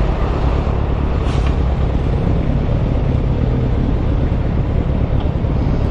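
Motorcycle engine with a steady low rumble of wind on the rider's camera as the bike rolls slowly through stopped traffic and comes to a halt.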